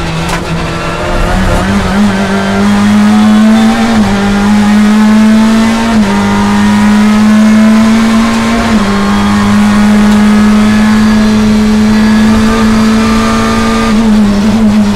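Onboard, in-cabin sound of a Chevrolet BTCC touring car's turbocharged two-litre four-cylinder engine accelerating hard at full throttle out of a corner. It climbs in pitch through the gears, with three quick upshifts at which the pitch drops and then rises again. The revs ease slightly near the end.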